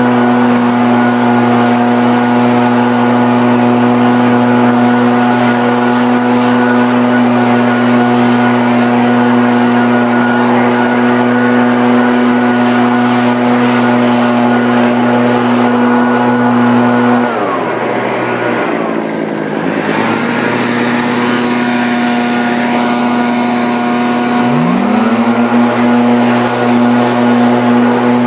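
Husqvarna 580BTS backpack leaf blower's two-stroke engine running at full throttle with a steady, high, even drone and rushing air. About two-thirds of the way through it is throttled back and its pitch falls, then a few seconds later it revs back up to full.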